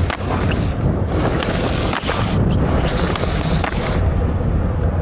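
Skateboard rolling on concrete, with a few knocks and clacks of the board, while wind buffets the microphone with a steady low rumble.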